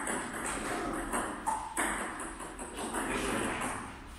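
Table tennis rally: the celluloid ball ticking off bats and table in a run of sharp clicks about a second apart, some with a short hollow ping.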